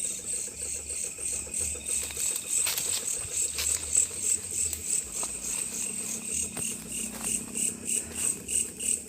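Insects chirring steadily in a high, evenly pulsing chorus of about three pulses a second, with a few faint clicks and one sharper knock about four seconds in.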